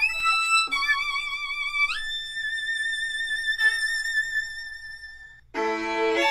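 Violin playing long bowed notes with vibrato. About two seconds in it slides up to a high held note that slowly fades, and a lower, fuller note comes in sharply near the end.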